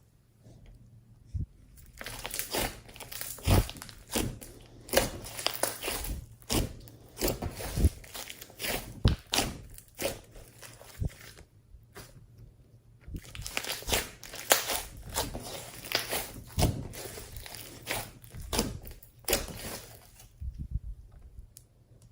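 Slime being squished, stretched and folded by hand, giving irregular sticky pops and crackling clicks in clusters, with a few short pauses.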